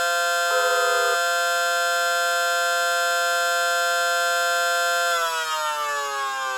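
Electronic and mechanical outdoor warning sirens sounding together on a pulsed wail and attack signal, set off by FSK radio. For about the first second a second tone pulses over the main one. The tone then holds steady until about five seconds in, when the pitch begins sliding slowly down.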